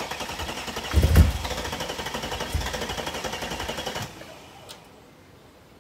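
The Mercedes CLK55 AMG's V8 cranking on the starter with a rapid, even chatter, on its first start after being rebuilt; a loud low burst about a second in as it fires, then the sound cuts off abruptly about four seconds in.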